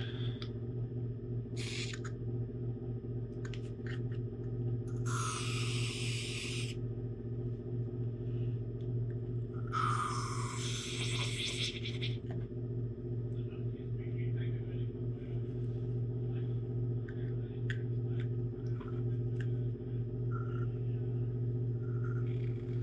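Two short hissing blasts from an aerosol spray can, each about two seconds long, about five and ten seconds in, over a steady low hum, with a few light clicks of parts being handled.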